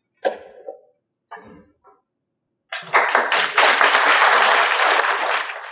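Audience applauding, starting suddenly about three seconds in after two short, fainter sounds, and running loud and dense to the end.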